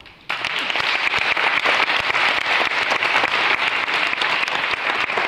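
Audience applauding, starting suddenly about a third of a second in and keeping up steadily.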